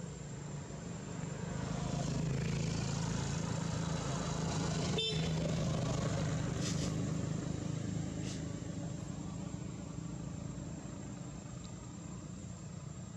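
Small motorbike passing on the road, its engine growing louder over a couple of seconds, holding, then fading away. A short horn beep sounds about five seconds in.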